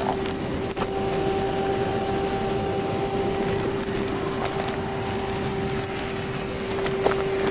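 Steady hum and rush of a vehicle's air conditioning running with the engine idling, carrying a constant drone, with two faint clicks about a second in and near the end.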